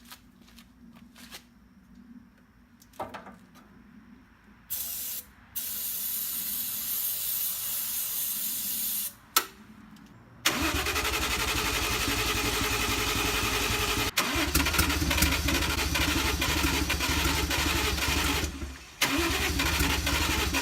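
Two sprays of starting fluid hiss from an aerosol can. About ten seconds in, the 1JZ inline-six starts cranking on its starter and sputters on the starting fluid without catching, with two brief pauses in the cranking. The owner's working hypothesis is that the engine won't run because its fuel injectors are not firing.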